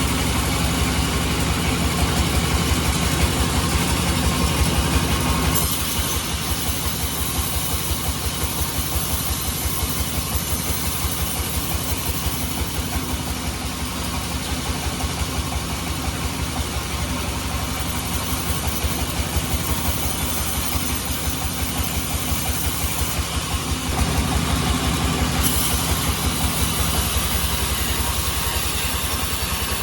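Sawmill band saw running with its drive engine pulsing steadily. The sound drops slightly about five seconds in, with more high hiss in the middle, and the engine pulse grows louder again near the end.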